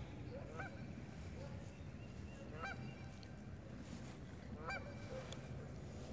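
Faint goose honking: three short, arched honks about two seconds apart, over a low steady background hiss.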